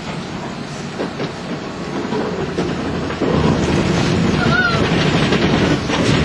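R17 subway car moving along the track, heard from inside its cab: a steady rumble of wheels and motors that grows louder about three seconds in.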